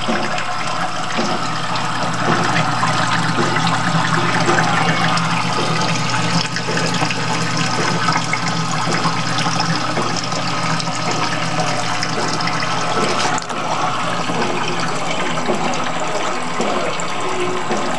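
Water running steadily from an aquarium breeder tank's drain and splashing into the glass tank below, a constant rush of water with a low steady hum beneath it.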